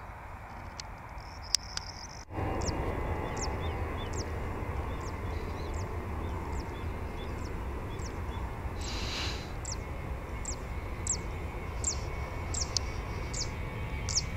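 Airbus A320's twin CFM56 jet engines running on the runway with a steady low rumble, which steps up louder about two seconds in. Over it a bird repeats a short, high call that falls in pitch, about twice a second.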